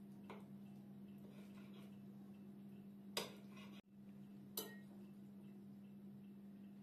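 Metal cutlery on a ceramic plate over a steady low hum: a knife scrapes briefly against the plate about three seconds in, and a spoon clinks sharply on it a little later.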